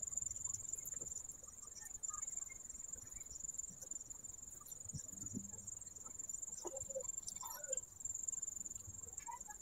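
Faint, steady, high-pitched trill of crickets, with a few light crumbly clicks from crushed potato-chip coating being pressed onto chicken by hand.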